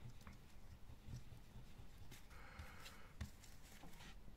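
Faint rubbing of a rubber pencil eraser scrubbing a thin copper sheet clean, with a few soft ticks.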